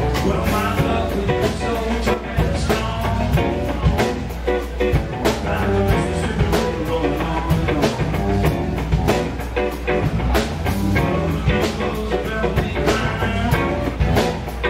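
Live blues band: an electric guitar playing lead lines over bass and a drum kit keeping a steady beat.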